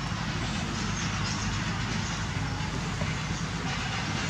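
Steady low rumble with an even hiss throughout: outdoor background noise.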